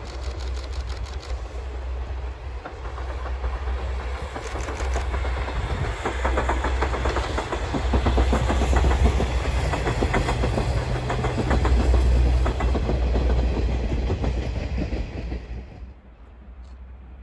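C58-class 2-6-2 steam locomotive and its coaches passing under steam, a heavy rumble with the rapid clickety-clack of wheels over rail joints, building to its loudest as the coaches go by. It drops away abruptly near the end.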